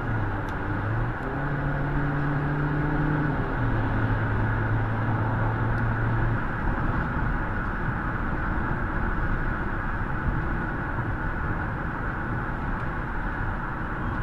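Car driving at highway speed, heard from inside the cabin: steady tyre and road noise, with a low engine hum that drops in pitch a few seconds in and fades out about halfway through.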